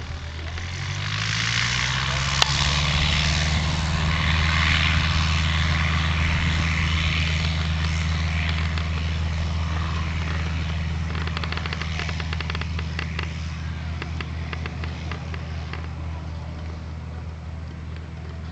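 Single-engine light aircraft's piston engine and propeller going to full power for takeoff: the pitch climbs about a second in, then holds steady and loud before fading slowly as the plane moves away. A single sharp click comes early on.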